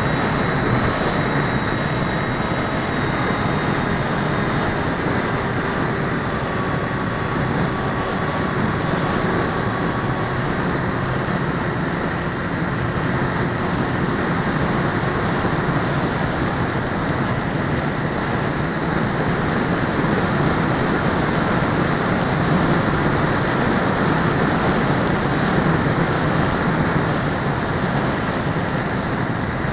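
Electric motors and propellers of an RC aircraft running steadily, a thin whine that drifts slowly in pitch, heard through a keychain camera mounted on it, with heavy wind buffeting the camera's microphone.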